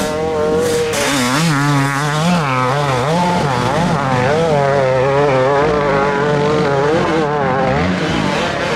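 Enduro motorcycle engine running hard, its pitch continually rising and falling as the rider works the throttle.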